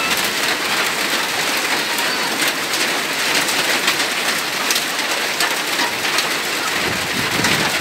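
Hail and rain falling hard and steadily: a dense hiss thick with sharp ticks of hailstones striking. A low rumble comes in near the end.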